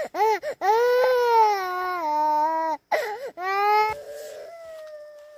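A young girl crying hard: long wailing cries broken by short sobs. The crying stops abruptly about four seconds in, leaving a fainter steady tone.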